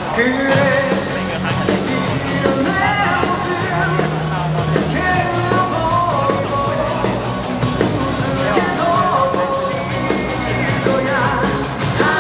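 Loud rock song with a sung vocal and a steady drum beat, played over a ballpark's sound system as dance music.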